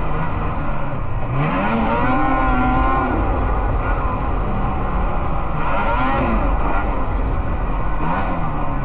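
Snowmobile engines racing: the engine note rises sharply about a second and a half in, holds high, then falls away. A second rise and fall comes around six seconds in, and a shorter one near the end, over a steady low rumble.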